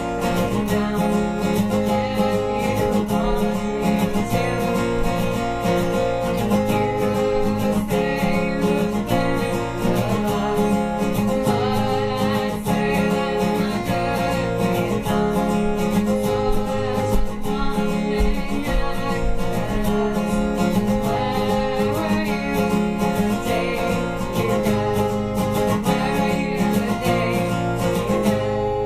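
Steel-string acoustic guitar strummed steadily, with a woman singing along.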